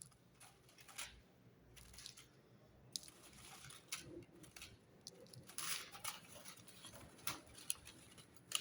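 Faint, scattered clicks and short rustles of hands handling single-core hookup wire and parts at a solderless breadboard.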